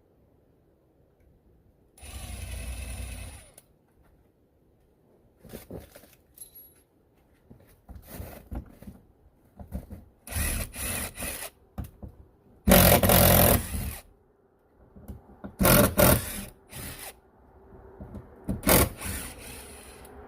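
Power drill backing screws out of a door, running in several short bursts of a second or so each, with pauses between.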